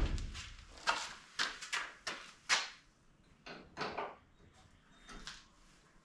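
Irregular short scrapes and clanks of hand work on metal parts, about a dozen in a row, unevenly spaced, each lasting a fraction of a second.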